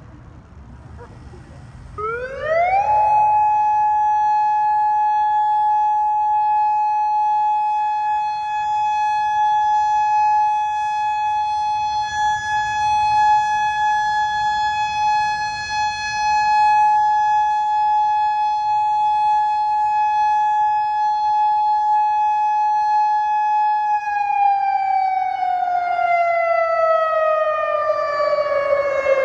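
Outdoor emergency warning siren sounding on a test: about two seconds in it winds up quickly to one steady tone, holds it for about twenty seconds, then winds down, falling steadily in pitch near the end.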